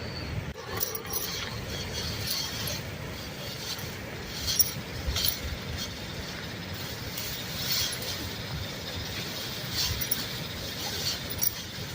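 Scattered light clinks and taps, about half a dozen, over a steady hiss.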